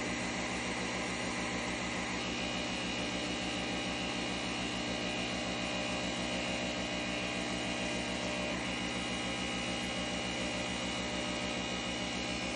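Nespresso coffee machine brewing: a steady machine whir over a fast, even low pulsing. The whir's upper tones shift slightly about two seconds in.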